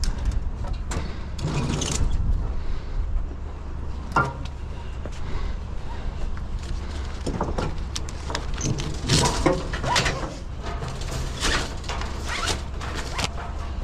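Irregular knocks, clanks and scrapes as scrap metal on a loaded truck and trailer is shifted and a tie-down strap is undone, over a steady low rumble. The handling is busiest in the second half.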